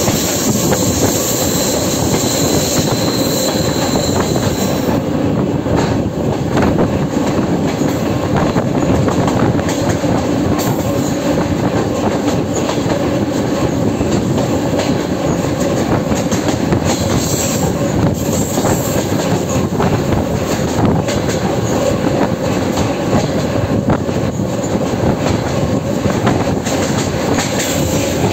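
Passenger train running steadily behind a ChME3 diesel shunting locomotive, heard through an open coach window: a loud, continuous rumble of wheels on rail with clattering over the joints. A thin high squeal fades out about five seconds in.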